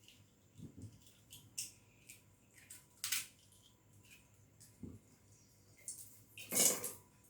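Scattered light clicks and knocks of objects being handled, with a louder rustling, scraping burst about six and a half seconds in.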